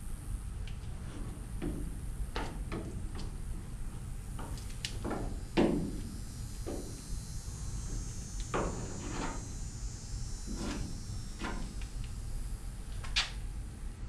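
Body-filler spatula scraping and tapping against the truck bed's corner as Bondo Glass fiberglass filler is spread on: a string of short, irregular scrapes and knocks, the loudest about halfway through.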